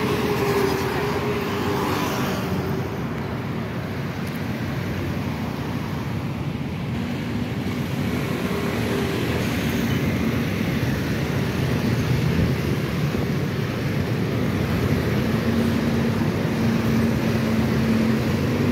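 Street traffic at a city intersection: motor scooters and cars running and passing, a steady mix of engine hum and tyre noise, with one engine hum held steady over the last few seconds.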